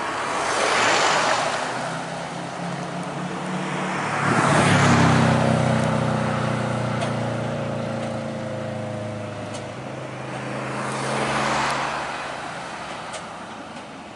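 Road vehicles passing close by three times, about one, five and eleven seconds in, each swelling up and fading away, over a low steady engine hum.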